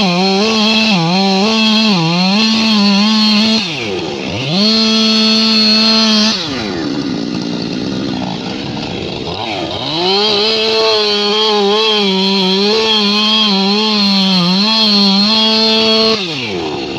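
Husqvarna two-stroke chainsaw at full throttle cutting wood, its pitch sagging slightly under load in the cut. The throttle is released to idle about four seconds in, revved again briefly, then idled before a second long cut that ends with a drop to idle near the end.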